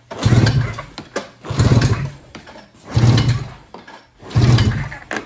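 Arctic Cat Mountain Cat snowmobile's two-stroke twin being cranked by its recoil pull-starter: four hard pulls about a second and a half apart, the engine turning over without firing because the spark plugs are out. The throttle is held wide open for a compression test.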